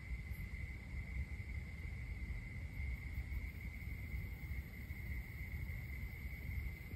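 Crickets trilling in one steady, unbroken high-pitched chorus, over a low rumble.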